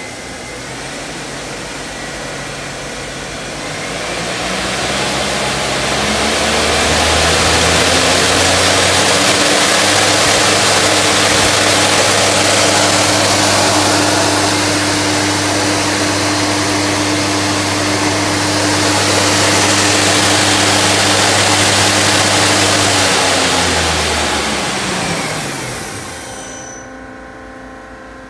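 Daewoo Lynx 200A CNC lathe spindle and hydraulic three-jaw chuck spinning up, running at speed and spinning down: a motor whine rises in pitch for a few seconds, holds steady with a loud rushing noise, then falls in pitch as the spindle slows to a stop near the end.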